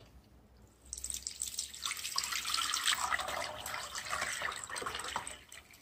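Liquid poured through a mesh strainer into a glass bowl, splashing and trickling steadily. It starts about a second in and tails off near the end.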